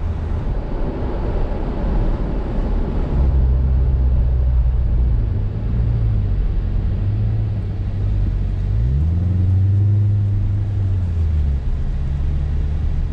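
2014 C7 Corvette Stingray Z51's 6.2-litre LT1 V8 running at low road speed, heard from inside the cabin with road noise. The engine note climbs about nine seconds in and drops back about two seconds later.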